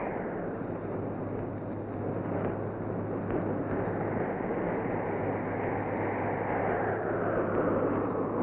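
Blizzard wind blowing, a steady rushing noise that swells and eases in slow gusts.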